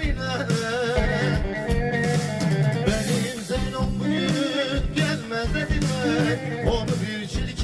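Live band music: a male singer singing through the PA in a wavering, ornamented vocal line over strummed acoustic guitars and a steady percussion beat.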